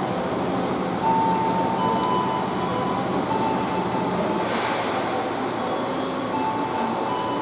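Stationary electric commuter train humming, several steady tones from its onboard equipment that shift slightly in pitch now and then, over the steady hiss of heavy rain.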